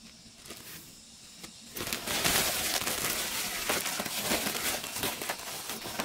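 Woven plastic rice sack crinkling and rustling as it is bunched up and twisted shut, starting about two seconds in with many quick sharp crackles.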